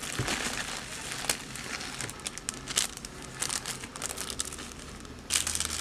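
Plastic packaging crinkling and rustling in irregular crackles as a shipping pouch is opened and a cellophane-bagged coaster is handled, with a louder burst of rustling near the end.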